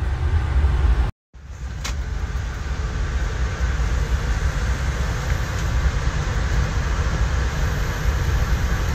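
Amtrak passenger train heard from inside the coach while moving: a steady low rumble with running noise over it. The sound cuts out briefly a little over a second in, then carries on the same.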